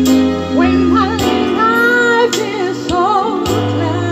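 A woman singing live into a microphone, holding long wavering notes, over an instrumental backing with a beat about once a second.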